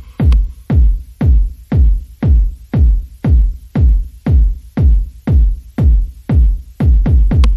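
Electronic background music with a steady, deep drum-machine kick beat, about three hits a second, with a quicker run of hits near the end.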